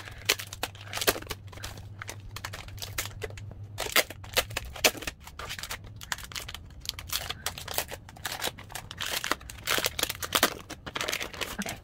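Foil pouch packaging crinkling and tearing as it is handled and ripped open, a dense run of sharp crackles and rustles.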